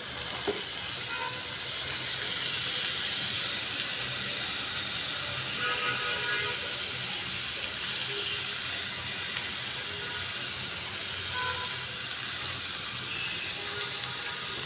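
Chickpeas sizzling in hot oil and fried spice paste in a karahi: a steady frying hiss.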